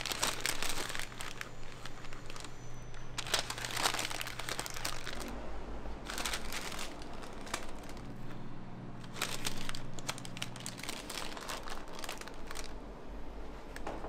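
Paper or plastic packaging being handled and crinkling in about five separate bursts, over a low steady hum.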